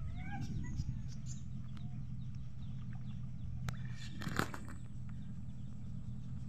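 Small boat engine running steadily with a low hum as the boat moves through floodwater. A few short chirps sound in the first second, and two sharp knocks come a little past halfway.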